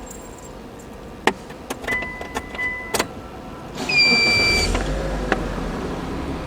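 Tyre-shop work noise: a few sharp metallic clicks and knocks, then about a second of loud hissing with a high whine, followed by a low rumble.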